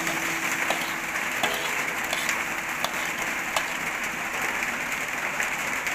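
Hot stir-fried eggplant sizzling in a wok as it is tipped out into a bowl, a steady hiss with scattered clicks of a metal spatula scraping against the wok.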